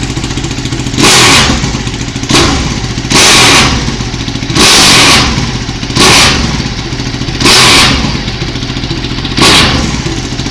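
Ducati Panigale 1199R's Superquadro L-twin on a Termignoni full exhaust system, idling and blipped hard seven times, each rev climbing sharply and dropping back to idle. It peaks around 128 dB on a sound meter.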